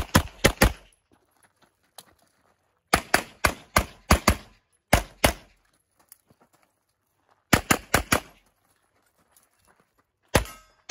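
9mm CZ Shadow 2 pistol fired in a competition stage: quick strings of two to four shots, with pauses of one to two seconds between groups as the shooter moves between targets.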